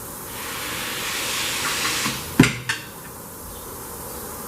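Compressed air hissing from a pneumatic tire-changing machine for about two seconds, then a sharp metallic clank and a lighter knock.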